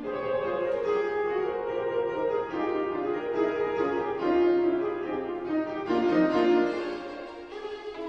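A piano quintet of piano, two violins, viola and cello playing together in a classical chamber piece, with the piano and strings sounding as layered sustained chords.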